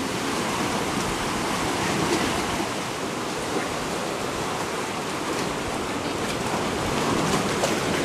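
Sea surf washing over a lava-rock shore: a steady rushing hiss that swells slightly near the end.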